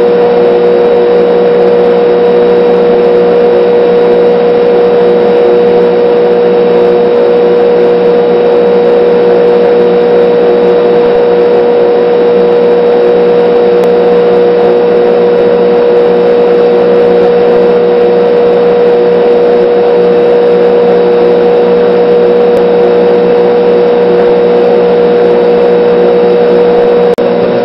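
Battery charger on its engine-start setting giving a loud, steady electrical hum as it drives electrolysis in a jar of water.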